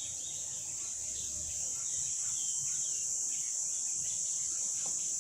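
Steady high-pitched chorus of crickets, with scattered faint bird chirps over it.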